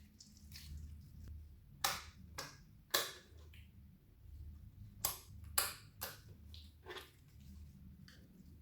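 Clear slime being squished and stretched by hand, giving a run of sharp, wet pops and clicks, about seven of them from about two seconds in.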